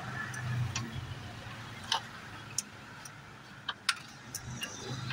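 Socket ratchet clicking in a few sharp separate clicks as it is worked on a bolt in an engine bay, over a low steady hum.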